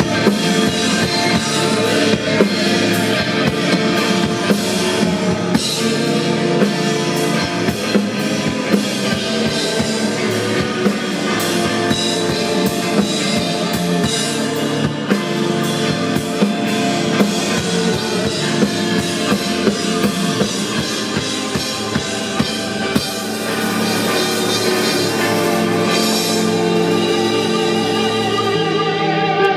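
Live rock band playing with the full drum kit (regular drum and cymbal hits) and electric guitar. Near the end the drums drop out, leaving the guitar.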